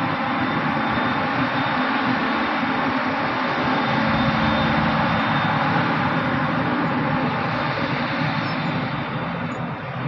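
Claas Jaguar self-propelled forage harvester running at work chopping grass for silage, a steady loud machine noise with a high whine over it, together with the Fendt tractor pulling the silage trailer alongside. The sound eases slightly near the end as the harvester moves away.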